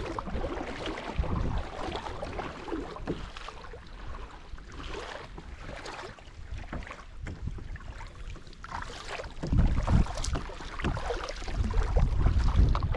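Wind buffeting the microphone with water splashing and lapping; the wind rumble grows heavier from about nine seconds in.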